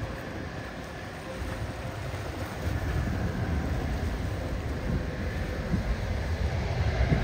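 Airbus A330 jet engines rumbling steadily, growing louder about three seconds in, with wind buffeting the microphone.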